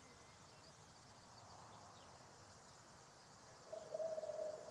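Faint outdoor ambience with a low hiss. Near the end, a steady, wavering buzzing tone starts up, clearly louder than the background: a flying insect close to the microphone.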